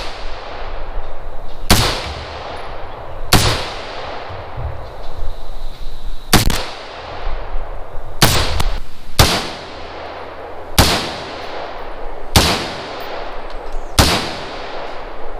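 AR-15 rifle firing single shots in slow semi-automatic fire, about nine shots one to three seconds apart, two of them in quick succession near the middle. Each shot is followed by a short echo.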